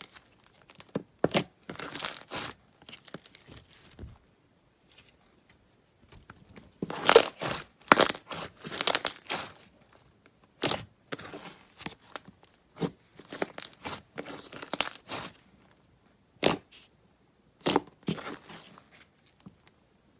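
Slime being played with by hand, giving irregular runs of crackling, popping clicks. A short quiet pause comes about four seconds in, and the densest, loudest crackling falls in the middle.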